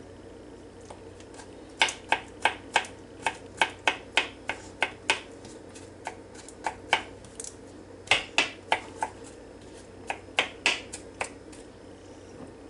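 A small kitchen knife chopping sweet pickles on a cutting board: sharp clicks of the blade striking the board, in irregular runs of several a second, starting about two seconds in and stopping shortly before the end.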